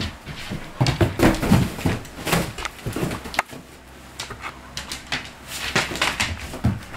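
A husky and a Czechoslovakian wolfdog play-fighting: irregular scuffles and knocks of paws and bodies on the wooden floor and dog bed. There is a quieter spell about halfway through.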